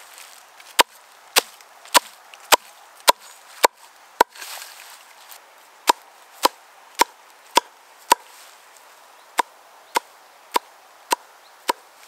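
Wood being chopped by hand: sharp, regular blows about two a second, in three runs of seven, five and five strokes with short pauses between.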